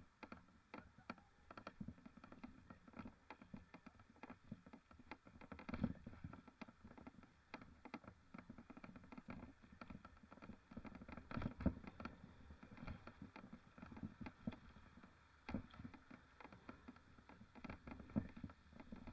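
Mountain bike rattling and knocking over rough ground, heard faintly as many irregular clicks a second with a few louder thumps, about six and twelve seconds in.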